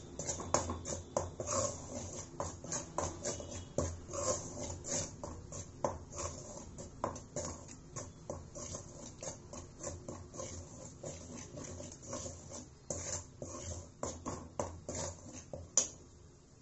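Perforated metal spoon scraping and tapping against a hammered aluminium kadai as dry rice flour is stirred and roasted on low heat. Irregular scrapes and clicks come a few times a second, with one sharper knock near the end.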